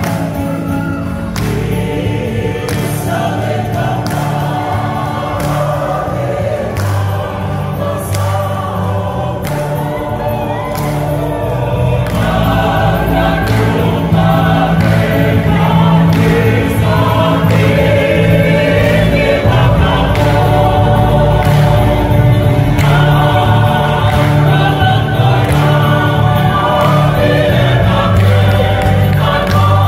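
A choir of women, with a few men among them, singing together; the singing grows louder about twelve seconds in.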